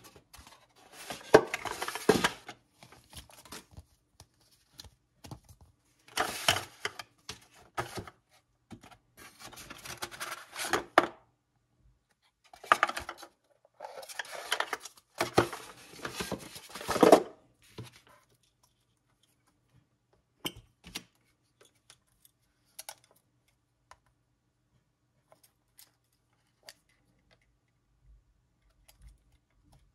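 Expanded-polystyrene packaging rubbing and scraping in bursts of a second or two as the foam box is opened and the parts inside are handled. After about 18 seconds only scattered small clicks and taps are left, from handling a metal camera body.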